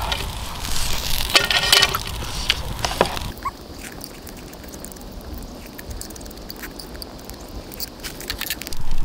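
Faint scattered clicks of a fork and chopsticks against a plate during eating, over low outdoor background noise that drops noticeably about three seconds in.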